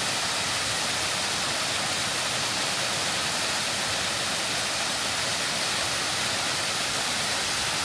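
Waterfall rushing steadily: an even hiss, stronger in the upper range than in the low rumble, with no breaks or separate events.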